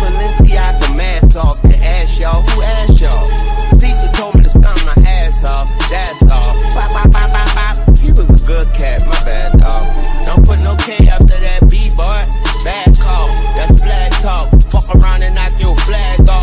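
Hip hop background music with deep bass and a steady drum beat.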